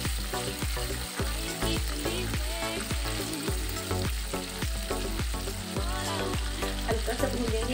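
Chopped green chillies frying in mustard oil with cumin, fennel and nigella seeds in a non-stick kadhai on a low flame, sizzling steadily while a silicone spatula stirs and scrapes them around the pan.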